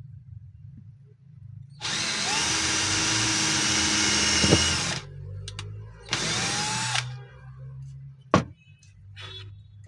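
Cordless drill spinning up and boring a hole into a wooden block: one run of about three seconds, then a second short burst of about a second, each starting with a rising whine. A single sharp click follows near the end.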